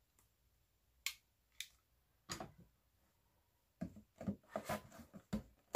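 Faint handling sounds of hot-glue crafting: a few sharp clicks, then a run of soft knocks in the second half as a small wooden piece and a cardboard model are handled on a cutting mat, with a hot glue gun in use.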